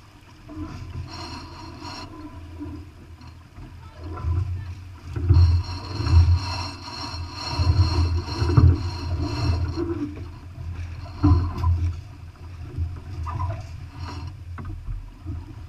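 A sailing yacht's sheet winch is being cranked, its pawls ratcheting in runs of quick clicks, while the headsail is handled. Loud gusts of wind buffet the microphone throughout.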